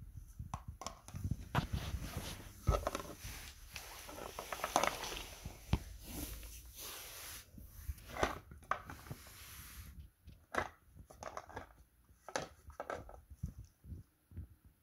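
Border collie chewing a dried pig ear treat: irregular crunches and clicks of bites on the hard chew.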